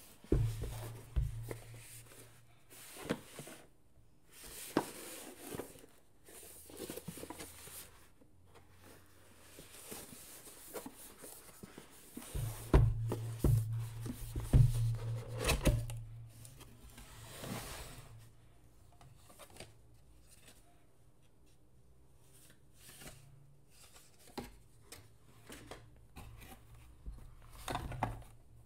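Cardboard gift box handled and opened by gloved hands: rubbing and scraping of the card as the lid is worked open, with heavier knocks near the start and again about halfway through. Near the end a ceramic mug is lifted out of its cardboard dividers with a few light knocks.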